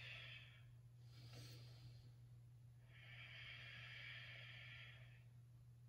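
Faint, slow breathing of a woman holding a yoga pose: a short breath at the start, another about a second in, and a long, steady exhale from about three to five seconds in, over a low steady hum.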